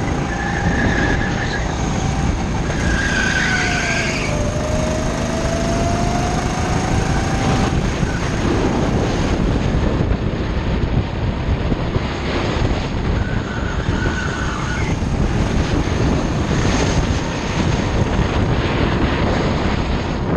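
Go-kart engine running at speed, heard from on board; its pitch dips and climbs back up as the kart slows for a corner and accelerates out. A few short tyre squeals come through the corners.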